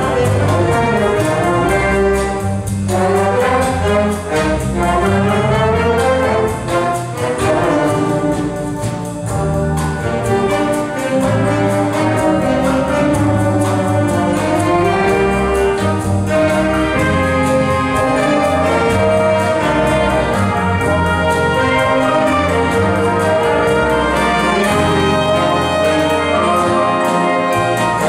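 An ensemble playing a piece live, with brass instruments to the fore over a moving bass line.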